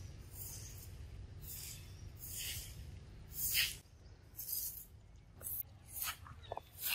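Crunching rustles of dry leaf litter, about one a second like footsteps through dead leaves, the loudest about halfway through, with a few short sharp clicks near the end.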